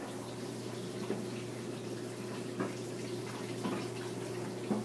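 Tumble dryer running: a steady hum with an even rushing noise from the turning drum.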